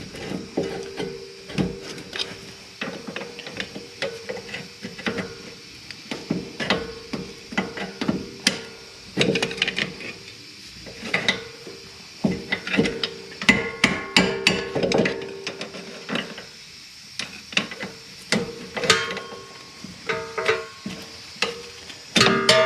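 Metal brake parts and hand tools clinking and knocking: a long run of irregular sharp taps and clicks, over a steady low hum.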